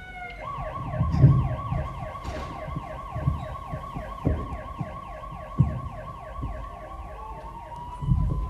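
Emergency-vehicle siren sound effect: a fast yelp warbling about five times a second over a steady held tone, with a second wail sliding upward near the end. A few dull thumps sound underneath it.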